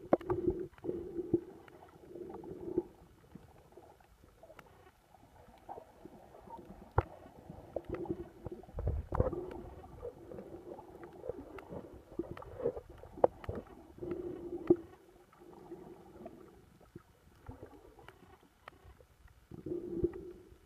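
Muffled underwater sound picked up by a camera submerged while snorkeling: a low gurgling wash with a hum that swells and fades every few seconds, and scattered sharp clicks and pops.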